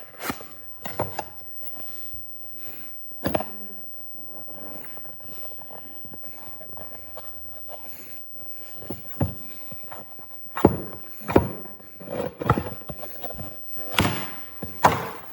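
A knife set's packaging being opened by hand: the inner part of the box slides and scrapes, with rubbing and handling noise and scattered sharp knocks that come more often and louder in the second half.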